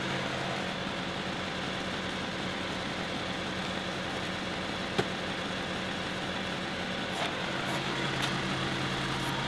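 John Deere 2038R compact tractor's three-cylinder diesel engine running at a steady speed while it powers the 270B backhoe digging a trench, with one sharp click about halfway through and a few light ticks near the end.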